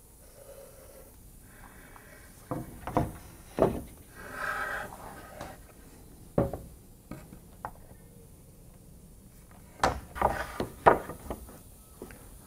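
Sharp wooden knocks and clacks from clamps being set and moved along a glued-up plywood jig and nails being shot in, in two clusters with a single knock between them, and a short scraping sound about four and a half seconds in.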